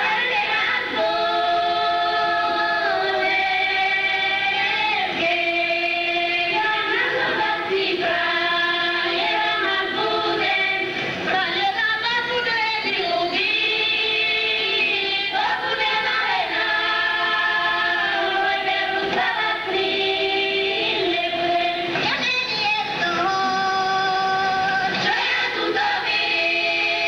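A group of women singing a Slovak folk song together, in long held notes joined by sliding ornaments.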